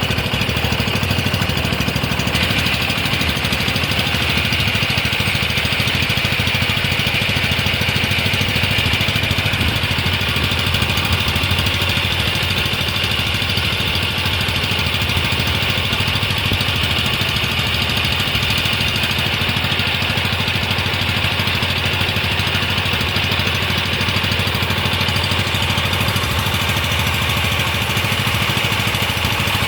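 A small engine running steadily at an even speed, unchanging throughout.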